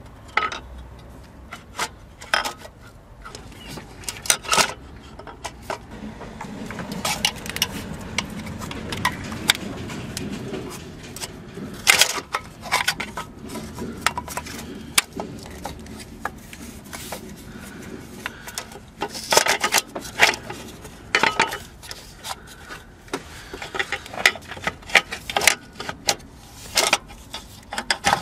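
Irregular metal clinks, taps and scraping as a clutch pressure plate is handled and seated over the friction disc against the flywheel. A stretch of rubbing scrape comes in the first half, then scattered sharp clicks and knocks.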